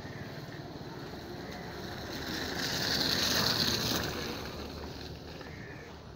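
A car driving past close by on a wet dirt lane. Its engine and tyre noise swell to a peak about three seconds in, then fade away.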